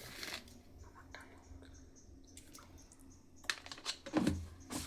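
Mostly quiet, then a short run of light knocks and clicks from kitchen utensils on a cooking pot about three and a half seconds in, as salt is spooned into the rasam.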